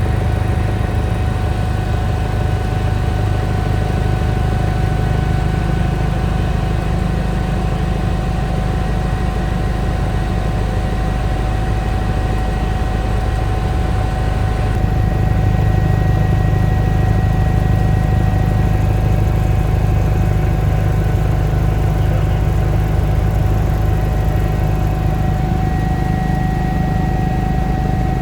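Eurocopter EC145 twin-turbine helicopter in flight, heard from inside the cabin: a steady low rotor drone with a constant high whine over it.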